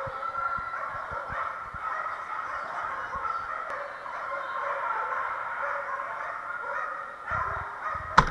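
Continuous echoing din of many dogs barking and yelping at once, with a sharp knock near the end.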